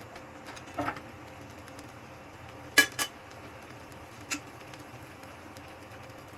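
Utensils clinking against dishes: one clink about a second in, a louder pair near three seconds, and one more a second and a half later, over a steady low background hum.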